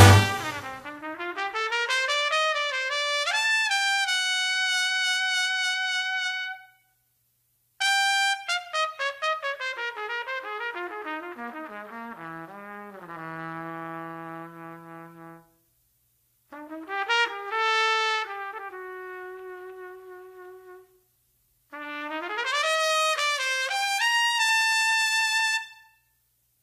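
Film score music: a solo trumpet playing four slow, lyrical phrases, with rising glides into held notes and short silences between the phrases.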